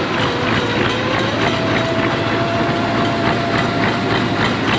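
Massey Ferguson 1155 tractor's Perkins V8 diesel running with a steady, dense clatter just after a cold-weather start, having fired up readily. A thin steady whine sounds over it for a few seconds mid-way.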